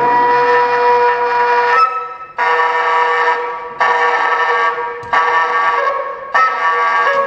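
Soprano saxophone playing a run of long held notes, each a second or so, with rich overtones and short gaps between them, in a free improvisation.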